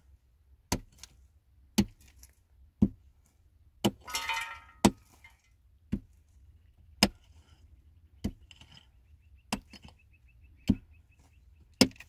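A hand tool striking hard material with regular, evenly paced blows, about one a second, eleven strikes in all. A brief rattling clatter comes about four seconds in.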